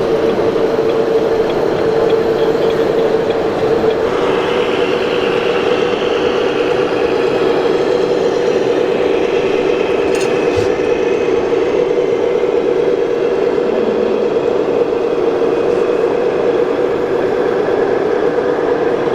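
Small electric motors and gearing of 1/14-scale RC construction models running with a steady whine, a higher-pitched whine joining about four seconds in and fading a few seconds later.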